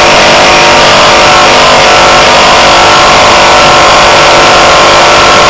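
Opened-up Danfoss Maneurop two-cylinder reciprocating refrigeration compressor running loud and steady on single-phase 240 V through a run capacitor.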